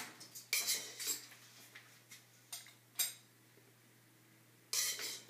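A metal spoon scraping and clinking against a stainless steel colander and a glass dessert dish as berries are scooped out. There are a few scattered scrapes and clinks with quiet between them, and a short sharp click about three seconds in.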